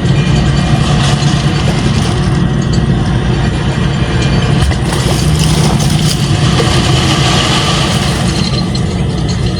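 Engine of the heavy pipe-pulling machine running steadily with a low hum.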